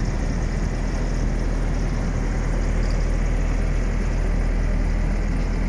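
Thermo King SLXe 300 Whisper trailer refrigeration unit running steadily, a low even hum at a constant level.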